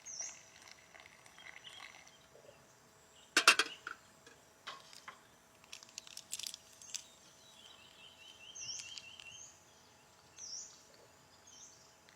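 Birds chirping in the jungle: short high calls repeated several times and a rapid trill at about eight to nine seconds. A brief loud rattle of clicks about three and a half seconds in is the loudest sound, with a few softer clicks a couple of seconds later.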